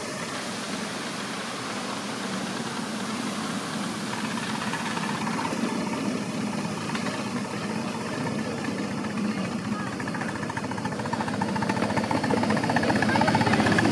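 5-inch gauge miniature steam locomotive working along the track, its exhaust beating quickly and evenly and getting louder as it approaches.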